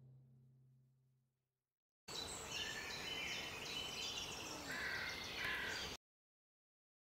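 Crows cawing over smaller birds chirping, a clip about four seconds long that starts and stops abruptly. Before it, the last low drum notes of a music passage fade out, followed by a second of silence.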